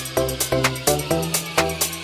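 Background electronic dance music with a quick, steady beat, about four beats a second, under held synth notes.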